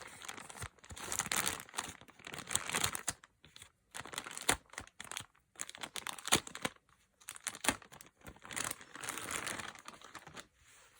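Crinkly packaging being handled and torn open as a weighted sleeping mask is unwrapped: irregular rustling and crinkling with sharp crackles throughout.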